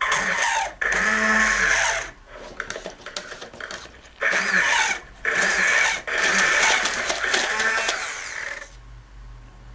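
Hand-held immersion blender whining in several bursts of a second or more, switched off and on, with a longer run near the end, as it churns toilet paper and water into a pulp for paper clay.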